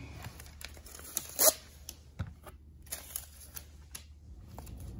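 Rustling and scattered light clicks, like things being handled, with one louder rustle about a second and a half in.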